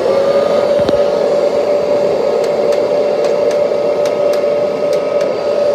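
Kirby Heritage II upright vacuum cleaner's motor running at full speed: a loud, steady whine over rushing air. There is a single sharp click about a second in.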